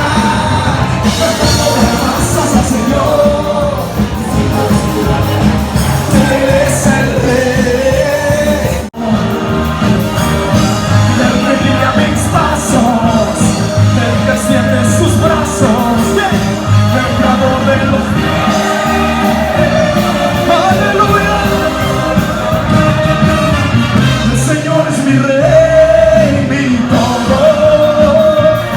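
Christian worship music with a band and a singing voice, cutting out for an instant about nine seconds in.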